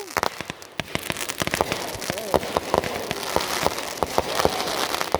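Fireworks crackling: a dense, irregular patter of sharp pops and crackles over a steady hiss, the crackle effect of consumer aerial fireworks.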